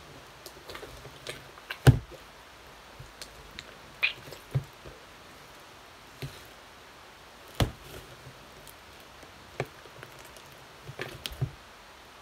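Slime being squeezed, kneaded and pulled by hand in a plastic tub: scattered sticky pops and clicks, with a heavier thump about two seconds in and further knocks every couple of seconds.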